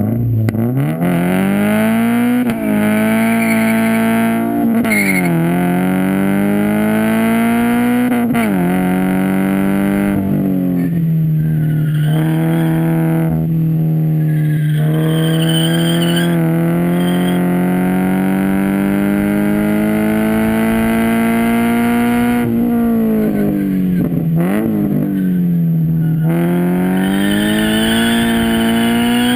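2013 Scion FR-S's flat-four engine pulling hard through a Nameless track exhaust with overpipe/downpipe: the revs climb and drop sharply at three quick upshifts in the first eight seconds, then hold in a long, slowly rising pull. Near the end the revs fall and dip twice before climbing again.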